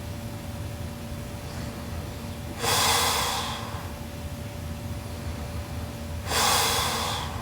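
A sleeping woman snoring: two long, noisy breaths, each about a second long and roughly three and a half seconds apart, over a faint steady hum.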